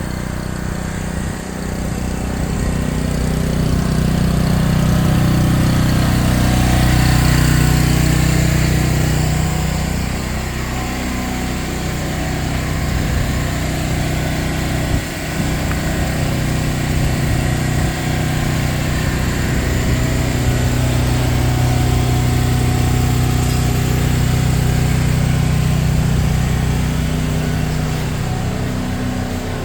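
A motor or engine running steadily, its drone swelling and easing slightly, with one short knock about halfway through.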